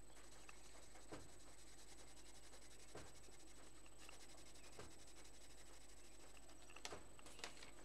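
Coloured pencil shading on paper: faint scratchy strokes, a few standing out every second or two, over a steady low hiss.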